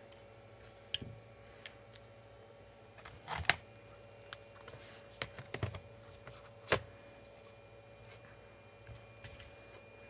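Irregular clicks and knocks of small tools and plastic and metal laptop parts being handled during disassembly. The loudest is a quick cluster of knocks about three and a half seconds in, with another sharp knock near seven seconds, over a faint steady hum.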